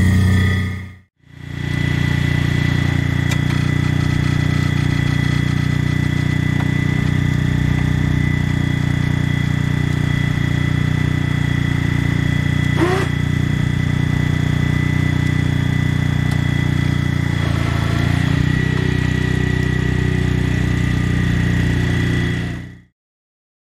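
Honda HT3813 lawn tractor's engine running steadily with a constant high whine over it, after a brief break about a second in. About halfway through a short rising squeal sounds, the engine's note shifts a few seconds before the end, and then the sound cuts off.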